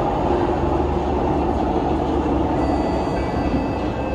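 Interior of a Singapore MRT train carriage while the train runs: a steady rumble and hiss of wheels and running gear. Faint high-pitched whining tones come in about two and a half seconds in.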